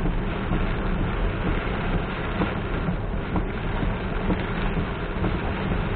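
A car driving in heavy rain: steady rain and wet-road tyre noise with a low rumble.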